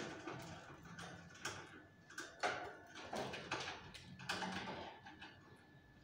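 Fischer's lovebird, wet from its bath, making a run of short scratchy bursts of noise in a wire cage, about two a second, the loudest about two and a half seconds in, fading near the end.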